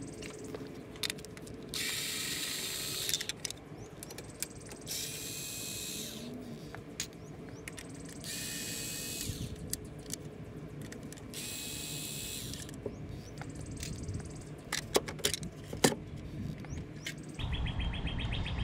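A small cordless power driver whirring in four short runs of about a second each, a few seconds apart, as it backs out small bolts. A few sharp clicks follow near the end.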